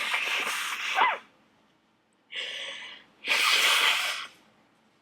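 A person sneezing twice, about three seconds apart, in a sneezing fit set off by attic dust, with a shorter breath sound between the two sneezes.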